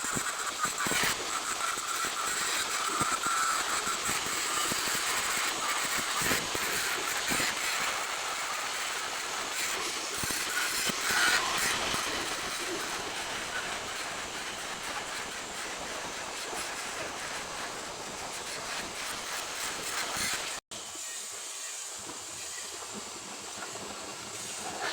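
Stick (SMAW) welding arc on a carbon steel pipe joint: a steady crackling, sizzling hiss with scattered pops. It cuts off abruptly about 20 seconds in and returns fainter.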